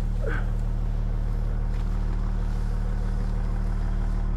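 Side-by-side UTV engine idling, a steady low hum with no change in pitch.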